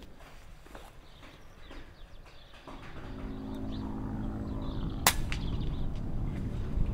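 A single shot from an Air Arms Ultimate Sporter pre-charged pneumatic air rifle, a sharp report about five seconds in, fired at a perched collared dove. Under it, a steady engine hum that grows louder from about three seconds in.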